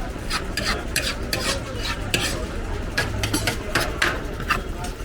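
Metal utensil clinking and scraping against a cooking pan, in quick, irregular strokes, over a steady low rumble.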